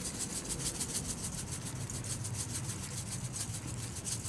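Hand-twisted salt grinder grinding salt over a bowl, a fast, even run of scratchy, rasping strokes.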